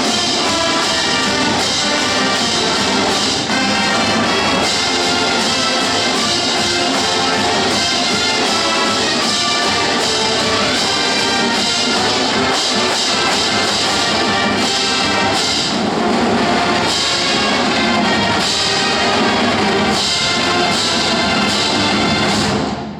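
Marching band playing a brass-and-drums fight song at full volume, with trumpets and trombones over a steady drum beat. The music cuts off sharply at the final note near the end.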